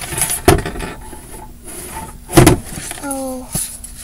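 Handling noise: two loud thumps, about half a second and two and a half seconds in, with lighter knocks and rustles between, as things are moved about on the floor. A short pitched note sounds briefly a little after three seconds in.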